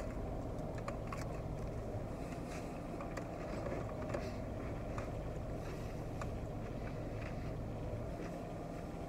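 Steady low hum of a car idling, heard inside the cabin, with faint irregular clicks and smacks of someone chewing a mouthful of fried chicken sandwich.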